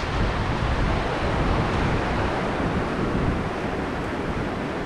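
Sea surf washing up the beach as a steady rush, with wind gusting against the microphone.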